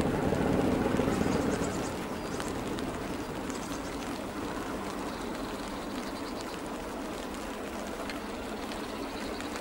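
Low rumble of a diesel train, heard from a distance, fading away over the first two seconds. Light rain hiss with scattered raindrop ticks follows.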